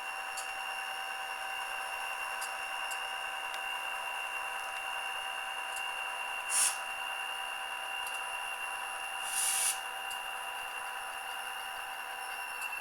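Model SD40-2 locomotive's ESU LokSound Select sound decoder playing diesel locomotive sounds through a tiny sugar-cube speaker: a steady engine drone with a high whine, thin and without bass. Two short bursts of air hiss come through, one just past the middle and a longer one a few seconds later.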